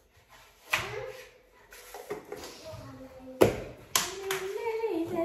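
A few sharp taps and knocks, the loudest about three and a half seconds in, as bottles are handled on a tiled kitchen counter. Near the end a voice hums or sings a short tune.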